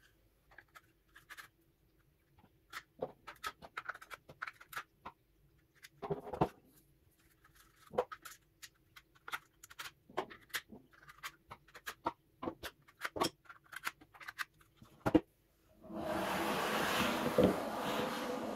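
Screwdrivers being pushed into black plastic holder racks: scattered sharp clicks and clacks of shanks and handles against the plastic. Near the end comes a louder scraping and rubbing noise lasting a couple of seconds.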